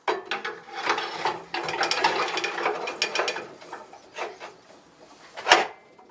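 Steel tooling arm bar of a knife sharpening jig being slid into a belt grinder's tool-arm receiver: metal scraping and clicking, then scattered clicks and one sharp knock about five and a half seconds in.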